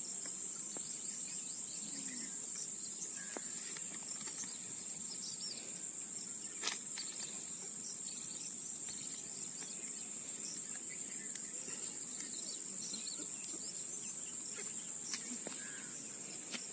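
Insect chorus: a steady high-pitched trill that holds throughout, with faint scattered chirps and one sharp click partway through.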